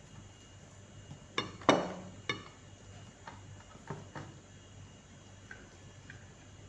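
A few short clicks and knocks of dishes on a tabletop as food is picked apart by hand on a ceramic plate, the loudest and ringing one about two seconds in, with a handful of softer clicks over the next few seconds.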